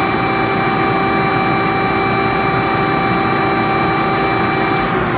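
Hydraulic plate shear's motor and pump running steadily, a constant machine drone with a steady whine, until it cuts off near the end.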